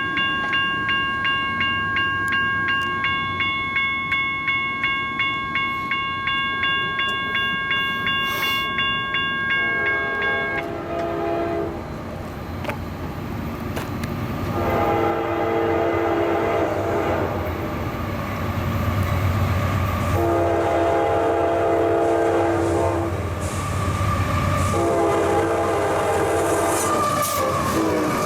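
A bell rings at about two strikes a second, then stops as a freight locomotive's multi-chime air horn sounds four blasts, a short one followed by three long ones. Under it the train rumbles, growing louder, with wheel clatter near the end.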